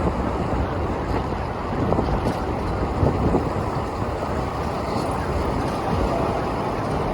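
Wind buffeting the microphone of a camera on a moving bicycle, a steady rushing noise, with city traffic running underneath.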